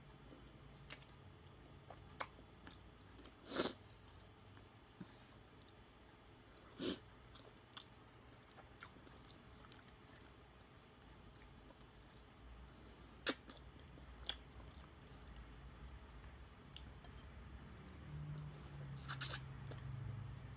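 Close-up eating of ramen noodles: quiet chewing and mouth sounds, with a few short slurps of noodles and scattered small clicks, one of them sharp past the middle.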